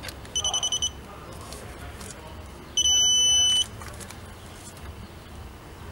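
Electronic beeping from a digital torque adapter on a lug nut being tightened: a quick run of about six short high beeps, then one long steady beep a couple of seconds later. The long tone signals that the set torque of 83 ft-lb has been reached.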